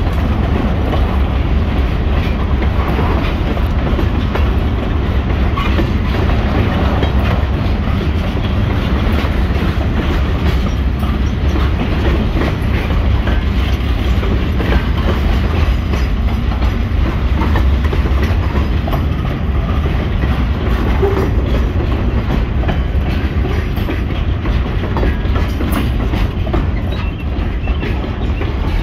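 Freight train of boxcars, tank cars and covered hoppers rolling past at close range: a steady low rumble with a constant patter of wheel clicks on the rails.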